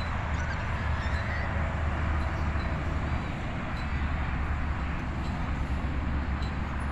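Steady outdoor background noise with a strong low rumble, and a few faint short high chirps scattered through it.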